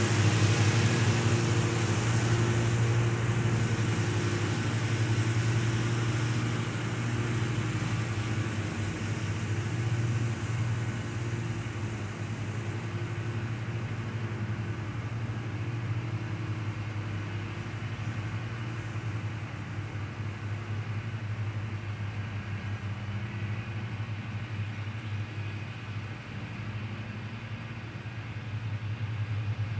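Zero-turn mowers' engines running steadily while mowing at a distance, a continuous hum. It fades over the first ten seconds or so and grows a little near the end as the mowers come back toward the microphone.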